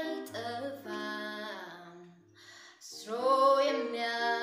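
A woman singing a melody over steady held low tones of an accompaniment. The singing breaks off briefly about two seconds in, then comes back in louder.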